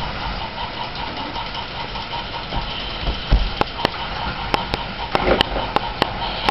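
Die-cast toy trains and plastic track being handled, giving a cluster of sharp clicks and clacks about halfway through, over a steady low hum.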